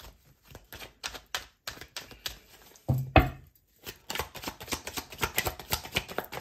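A tarot deck being shuffled by hand: a string of quick papery clicks and flicks from the cards. About three seconds in there is a single louder thump, and from about four seconds on the clicks come faster and denser.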